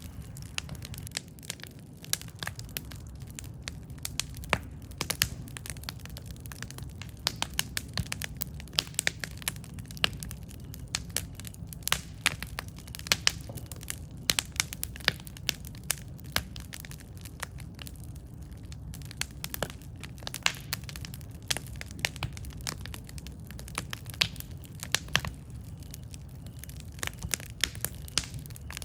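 Wood fire crackling: frequent sharp snaps and pops, several a second at times, over a steady low rumble of burning.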